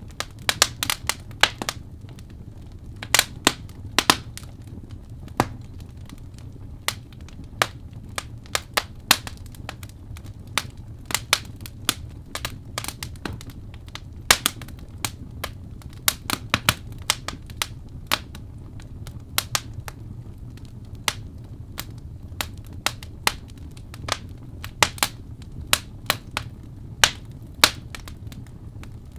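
Wood fire in a fireplace crackling, with irregular sharp snaps and pops, sometimes several in quick succession, over a low steady rumble.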